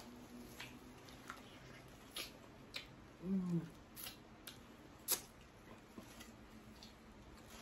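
Close-up eating sounds of a seafood boil: scattered sharp clicks and cracks of snow crab shell being broken and eaten by hand, with a short hummed "mm" about three seconds in.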